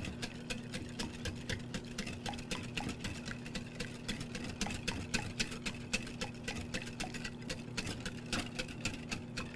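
Wire whisk beating instant pudding mix and cold milk in a glass bowl: a quick, continuous run of clicks as the wires strike the glass, over a steady low hum.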